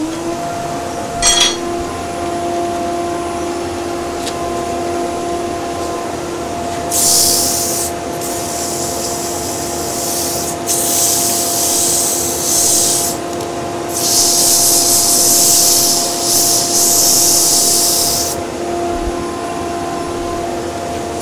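Wood lathe and dust extractor running with a steady hum while abrasive is held against the spinning wooden blank: three spells of sanding hiss, the longest about four seconds, near the middle. A sharp click about a second in.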